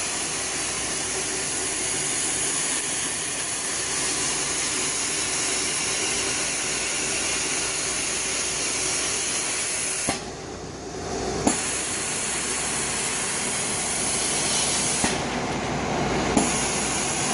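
Laser die-board cutting machine cutting plywood: a steady hiss of air. About two-thirds of the way in and again near the end, the hiss drops away for a second or so, with a click as it stops and another as it comes back.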